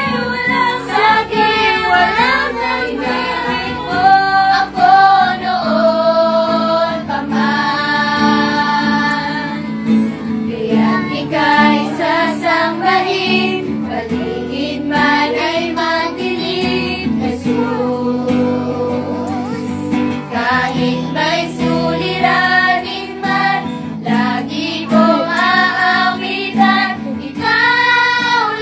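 A group of children and women singing a Tagalog Christian worship song together, accompanied by an acoustic guitar.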